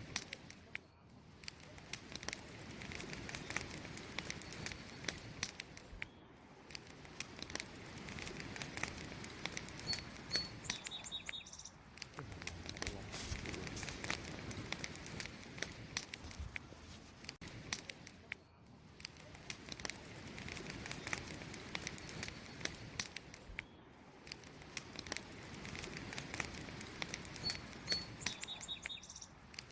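Campfire wood burning with steady dense crackling and sharp snaps, swelling and easing every few seconds. A short high chirp comes twice, about ten seconds in and near the end.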